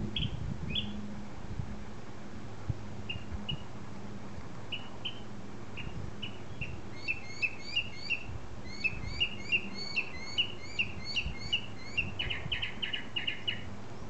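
A small grey songbird singing: a few scattered short chirps, then about halfway through a run of repeated rising chirps, two to three a second, changing near the end to a quick buzzy series of notes.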